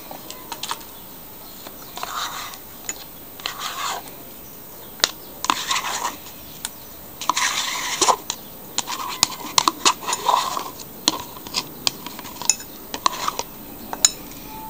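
Metal spoon scraping soft white cheese out of a plastic tub, with scattered sharp clinks of the spoon against the tub and a glass bowl and several short scraping sounds.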